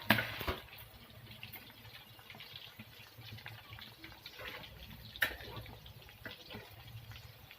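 Chicken kebab pieces deep-frying in hot oil: a steady, quiet sizzle with a couple of sharp pops or clicks, one near the start and one about five seconds in.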